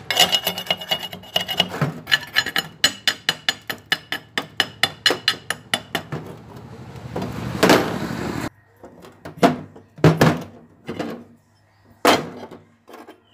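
Chipping hammer striking the slag off a fresh stick-weld bead on steel angle iron: a fast run of sharp taps, about four a second, for the first several seconds, then one heavier blow and a few scattered taps.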